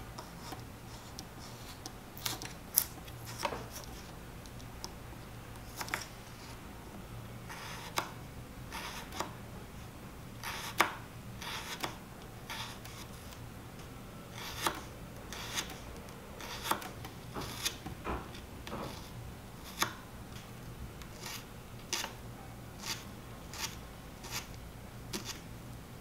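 A miniature knife slicing a carrot on a tiny wooden cutting board. Each cut ends in a crisp tap of the blade on the board, at an uneven pace of about one a second, sometimes two in quick succession.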